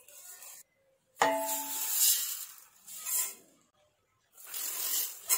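Dry rice poured from a metal tin into a steel pot, a hissing patter of grains, with a metallic clink and ring of tin against pot about a second in.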